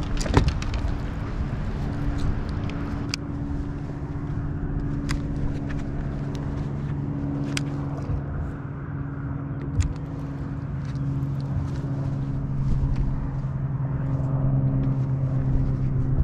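Steady hum of a boat motor, growing a little louder near the end, with a few sharp clicks and knocks on the boat.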